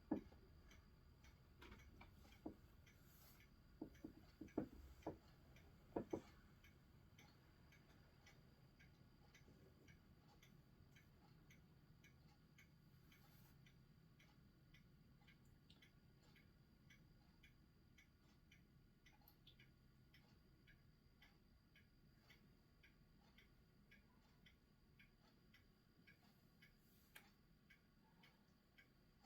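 Near silence with faint, evenly repeating ticking and a few louder clicks in the first six seconds.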